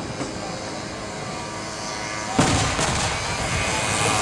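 Aerial firework shell bursting with a single sharp boom about two and a half seconds in, followed by a brief crackle.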